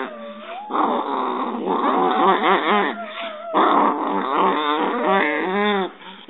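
Chihuahua growling and snarling with a wavering, whiny pitch, in several bouts with short breaks.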